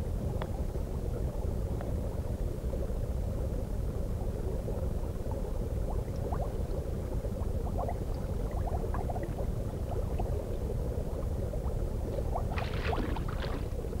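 Underwater stream water: a steady low rumble of moving water with small scattered bubbling pops, which grow brighter and splashier near the end.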